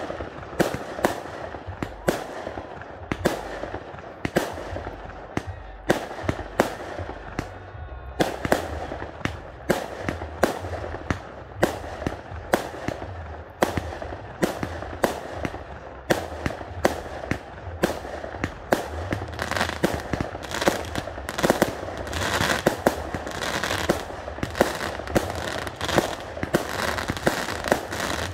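Fireworks display: aerial shells bursting in a steady run of sharp bangs, roughly one or two a second, becoming denser and more crackling near the end.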